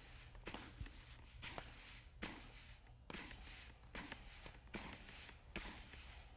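Quartz aggregate being broadcast by hand onto a wet MMA resin floor coat: faint, uneven swishes of grains scattering onto the surface, roughly one or two a second.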